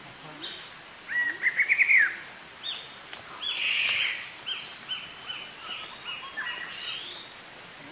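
Wild forest birds calling: a loud, quick run of rising chirps about a second in, then a string of short repeated notes, about two or three a second, with a brief harsh, noisy call near the middle.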